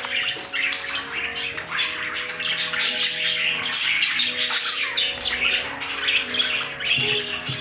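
Budgerigar chattering and warbling in a continuous run of short chirps and squawks.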